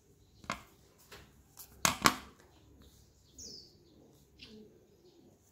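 Metal scissors snipping folded craft paper and being put down on the table: a few sharp clicks, the loudest pair about two seconds in, then light paper handling and a short high chirp.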